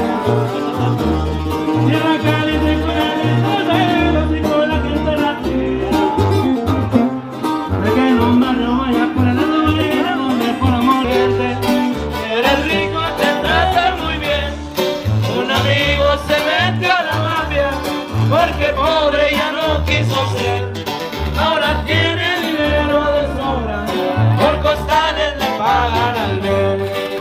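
Live Mexican regional band music: sousaphone bass notes pumping under a strummed twelve-string guitar, with a man singing the melody.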